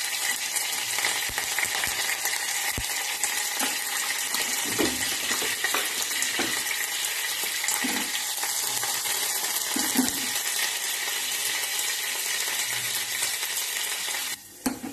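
Hot oil sizzling steadily in a small steel pan with mustard seeds, green chillies and curry leaves frying for a tadka, with a few faint ticks. The sizzle drops away abruptly near the end as the gas burner is turned down.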